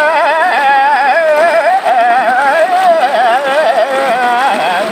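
A man singing one long, heavily ornamented melodic line, the pitch wavering and trilling constantly without a break.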